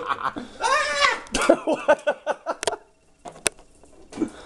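A person's voice: a high, wordless sliding exclamation, then a run of short vocal sounds. A single sharp click comes about three and a half seconds in.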